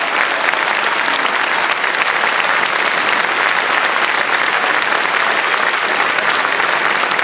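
Large audience applauding steadily, a dense sustained clapping that neither builds nor fades.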